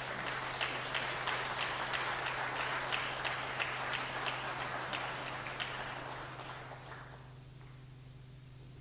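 Audience applauding at the close of a thank-you speech, a dense patter of many hands clapping that fades out about seven seconds in.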